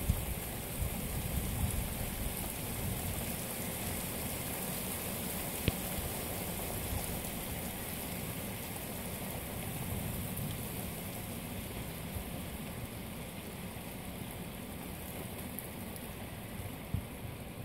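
Steady rain falling, with gusts of wind rumbling low. A sharp single tick about six seconds in and another near the end.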